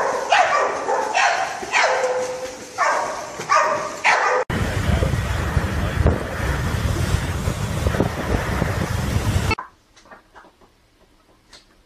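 Dogs barking in quick, repeated yaps for about four seconds. Then an abrupt cut to a loud, steady rush of wind buffeting the microphone with a heavy low rumble, which cuts off suddenly near the end into faint quiet with a few small taps.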